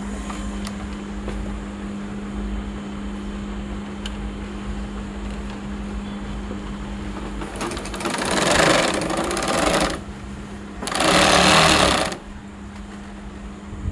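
Juki heavy-duty feed-off-the-arm industrial sewing machine stitching in two runs: one of about two seconds past the middle, then a shorter one of about a second, over a steady hum.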